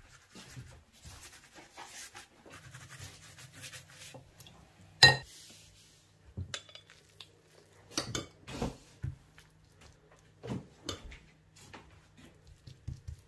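Soft brushing of egg wash over sheets of dough, then a glass bowl set down on a marble worktop with one sharp, ringing clink about five seconds in, followed by a few duller knocks and taps. A faint steady hum runs underneath.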